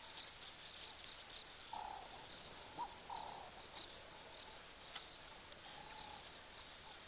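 Faint outdoor wildlife ambience with a steady high chirring. A short high bird chirp comes right at the start, and a few brief animal calls follow in the middle and again near the end.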